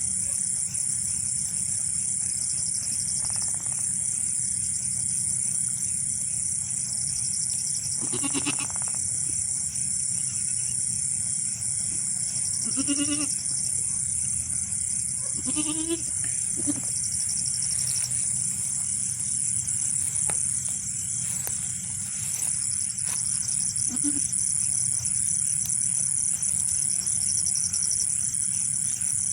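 Goats bleating: a handful of short calls spread out, over a steady high-pitched hiss.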